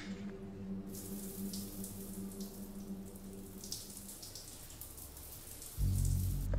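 Shower running, its water spray a soft steady hiss that starts about a second in, over a faint steady low hum. A louder deep low sound comes in near the end.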